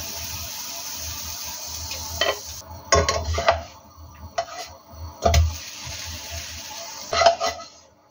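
Pancake batter sizzling in a hot nonstick frying pan, with a slotted spatula knocking and scraping against the pan several times as the pancake is worked loose and turned. The sizzle breaks off about two and a half seconds in and comes back after about five seconds.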